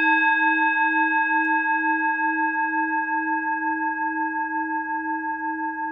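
A struck singing bowl ringing on after a single strike: a clear, layered tone that wavers gently and slowly fades.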